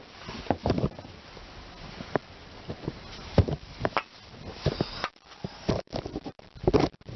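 Scattered clicks and knocks of tools and parts being handled around a clutch release cylinder, with a short hiss about four and a half seconds in.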